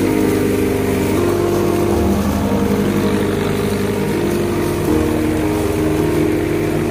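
Tractor engine running steadily under load while pulling a plough through soil, mixed with background music of held chords that change every second or two.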